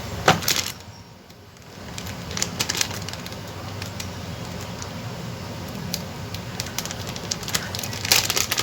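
Packaging being opened and handled by hand: scattered crinkling and sharp clicks of plastic wrap and parts, with a steady low hum underneath.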